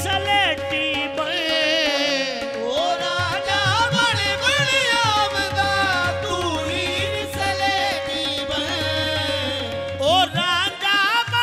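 Qawwali music: a singer's long, wavering melismatic runs over a steady held harmonium note and drum accompaniment. The held note drops out about ten seconds in.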